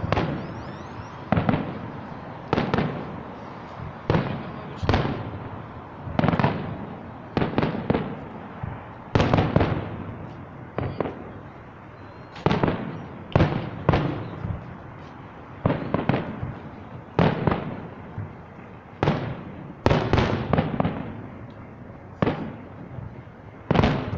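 Fireworks display: aerial shells bursting one after another, about one bang a second, each echoing and fading before the next.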